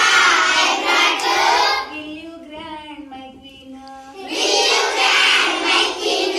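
A group of young children singing a rhyme loudly together, broken in the middle by a woman singing a line alone, then the children coming back in: call-and-response singing.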